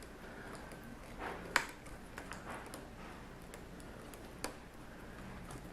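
Light, scattered clicks and taps of a small screwdriver and screws on the laptop's plastic screen housing as the screws are put back in, with a sharper click about one and a half seconds in and another about four and a half seconds in.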